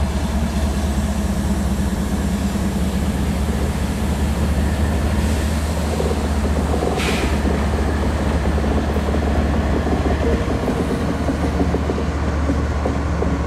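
Diesel freight locomotive's engine running with a steady low drone as it approaches slowly. A brief hiss of air about seven seconds in.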